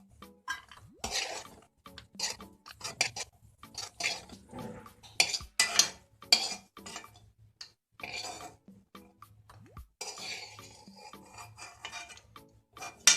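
A spoon scraping and clinking against a kadai as ghee-fried cashews, almonds and raisins are scooped out of it: a run of quick scrapes and knocks, with one sharp clink near the end.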